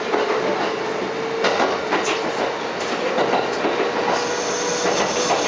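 Inside a Kintetsu 8600-series electric train car running uphill under power: a steady whine over the rumble of the running gear, with scattered clicks of the wheels over rail joints.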